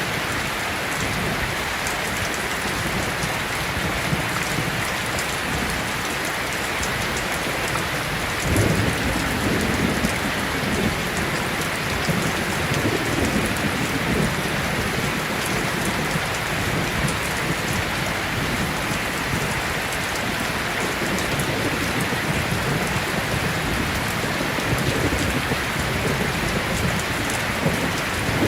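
Steady rain, with low rumbles of thunder rolling in about eight seconds in and lasting several seconds, then again near the end.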